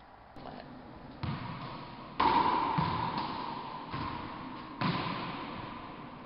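A series of about five sharp thumps, the loudest about two seconds in, each followed by an echoing ring that dies away over about a second.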